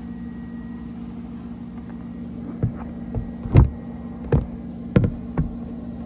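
A steady low hum with about six sharp knocks and bumps in the second half, the loudest a little past the middle, from things being handled around the snake's plastic tub.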